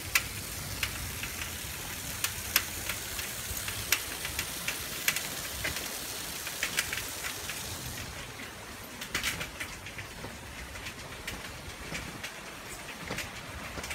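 Shallow water in a concrete river channel running over a low step, with a drain outlet spilling in: a steady rushing hiss, with scattered sharp clicks throughout. The hiss softens about eight seconds in.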